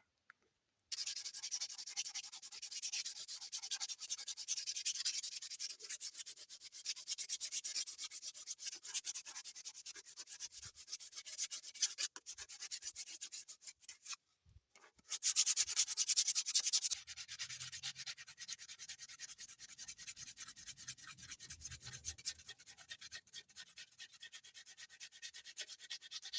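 Rapid, continuous scraping strokes of a hand tool abrading wood while shaping a wooden boomerang. The strokes stop briefly about halfway through, then resume.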